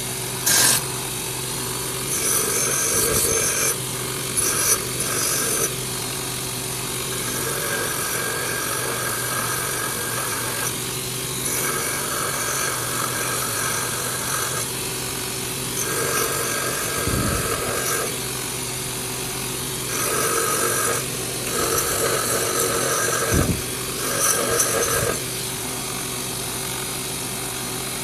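Ryobi combination bench grinder/belt sander running with a steady hum while a spring-steel knife blank is pressed against its sanding belt in about eight separate grinding passes, each a rasping grind lasting one to three seconds.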